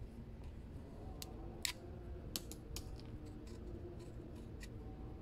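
About nine small, sharp clicks and taps at an irregular pace, the sound of small hard parts being handled and fitted by hand, over a steady low background hum. The loudest click comes just under two seconds in.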